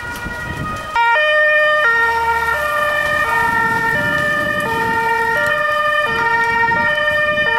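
Dutch fire engine's two-tone siren close by, switching between a high and a low note about every 0.7 seconds. It starts suddenly and loudly about a second in.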